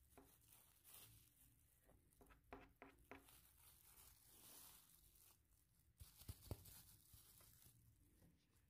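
Faint handling sounds of plastic: bags crinkling, and a few soft knocks about six seconds in.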